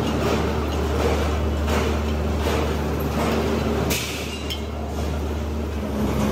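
Steady low machinery hum in a gas-cylinder workshop, with light metallic clinks about every 0.7 s and a brief hiss about four seconds in.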